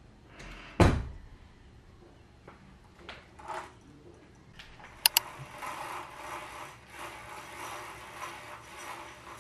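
Window blind being worked: a thump about a second in, then two sharp clicks and several seconds of rattling, ratchet-like mechanism noise as the blind is drawn.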